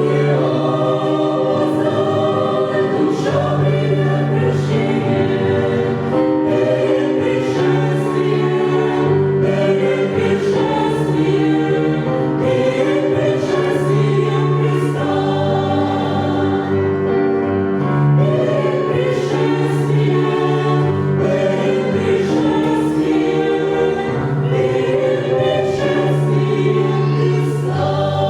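Church choir singing a Christian hymn, many voices holding chords that change every second or two.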